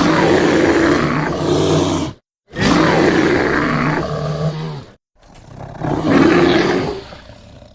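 Three animated-film roar sound effects for a wildebeest character, each a loud, growly roar of about two seconds. Each roar ends in an abrupt cut to silence, and the third one trails away near the end.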